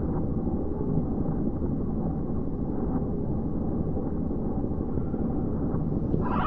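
A steady, dense low rumble of noise with no clear tone or rhythm.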